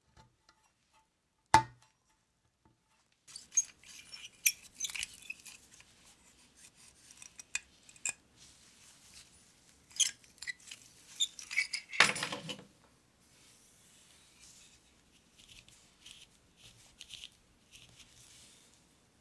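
Small metal parts of an oil lamp clinking and tapping against each other and a hard surface. There is a sharp click about a second and a half in, a stretch of light clinks, and a heavier knock about twelve seconds in.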